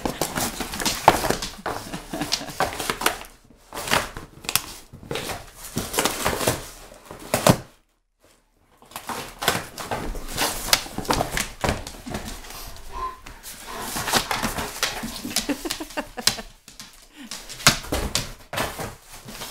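A German Shepherd tearing and chewing up a cardboard box: a busy run of crackling rips and crunches of cardboard, broken by a brief pause about eight seconds in.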